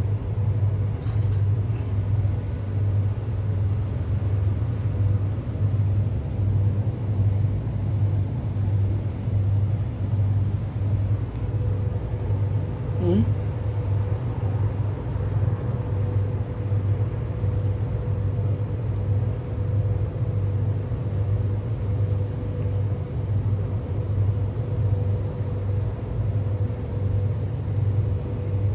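Steady low mechanical rumble that pulses evenly, about one to two beats a second. A faint steady whine joins about halfway through.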